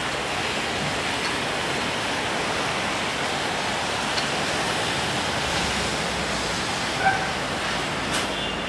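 Steady hiss of falling rain, with a brief faint high chirp about seven seconds in.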